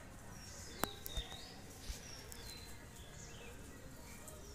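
Faint outdoor ambience with high, thin bird chirps, short gliding whistles heard three or four times. A single sharp click comes just under a second in.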